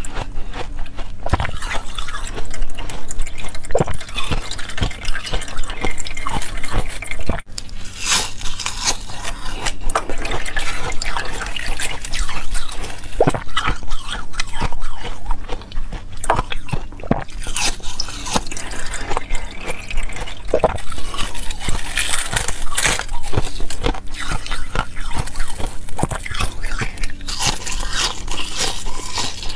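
Thin, brittle shards of clear ice being bitten and chewed, with dense crackling and crunching made of many small sharp snaps.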